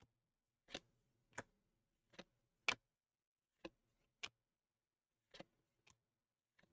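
2021 Panini Absolute football trading cards being flipped one by one through a hand-held stack: about nine short, sharp card clicks at irregular intervals, the loudest a little under 3 s in.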